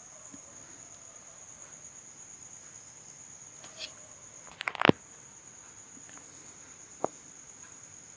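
A faint steady high-pitched electronic whine, with a few small clicks and taps; the loudest is a quick rattle of clicks about five seconds in, and a single sharp click comes near seven seconds.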